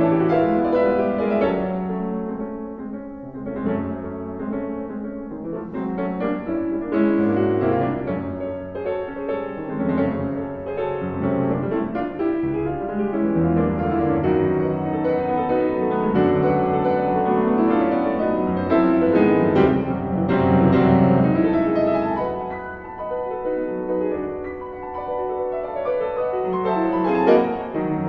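Concert grand piano playing a solo classical piece: dense chords and runs, swelling louder about two-thirds of the way through, with a sharp accented chord near the end.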